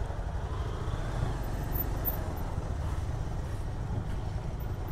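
Motorcycle under way: a steady low rumble of engine and riding noise.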